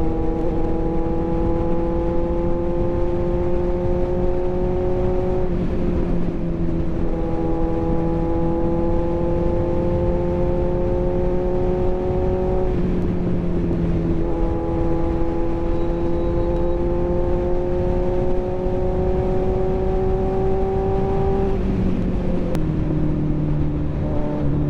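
Kawasaki Z900's 948 cc inline-four engine running under steady throttle at highway speed. Its pitch climbs slowly and drops back three times, about every seven to nine seconds, over heavy wind rush.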